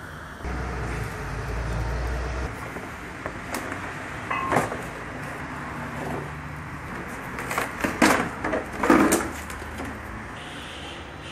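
Plastic wheel-arch liner being worked loose and pulled out of a car's wheel well: scattered clicks and knocks of flexing plastic, with a cluster of louder scrapes and knocks about eight to nine seconds in.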